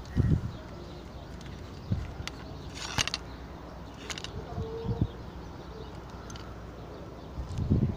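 Handling noise from the recording phone being moved and set up: a few scattered thumps and knocks with sharp clicks between them, the loudest thump just after the start. No grinder is running.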